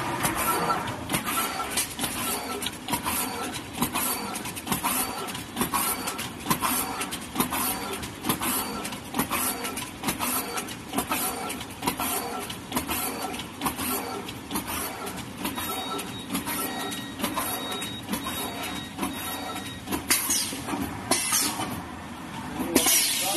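HSRQ-600G T-shirt bag heat-cutting machine running at production speed: a continuous mechanical clatter with clacks repeating in a fast, even rhythm as it cuts and stacks plastic bags.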